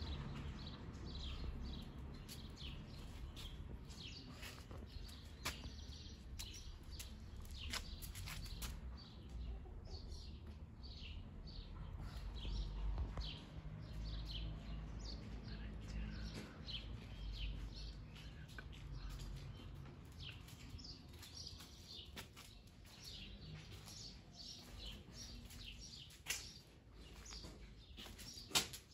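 Small birds chirping repeatedly, short high chirps that slide downward, coming thick and fast through most of the stretch. A low rumble runs underneath, and there are a few sharp clicks.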